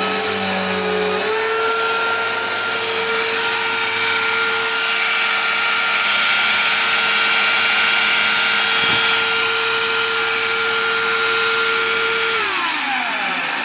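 A motor running with a steady whine over a hiss. It steps up in pitch about a second in, holds, and winds down near the end.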